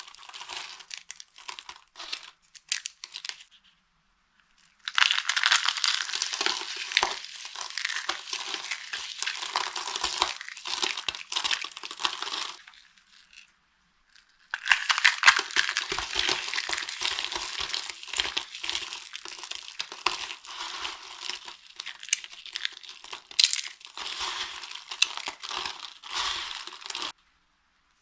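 Dry soap crushed and crumbling, a dense run of crisp crackling and crunching. It comes in long stretches broken by short pauses about four seconds in, about thirteen seconds in, and near the end.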